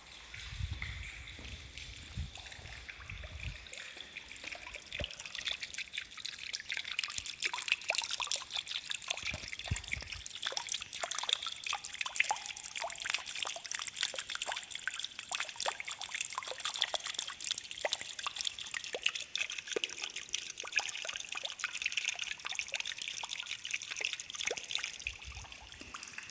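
Spring water dripping and trickling inside a tunnel: a dense patter of many small drips that grows thicker after about five seconds. Brief low rumbles near the start and about ten seconds in.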